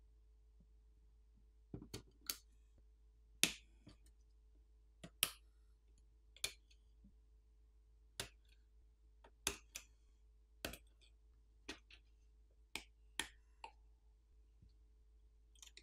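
Sharp clicks of a pry tool unclipping flex-cable connectors and small parts from an iPhone 16e logic board: about fifteen short clicks at uneven intervals, starting about two seconds in.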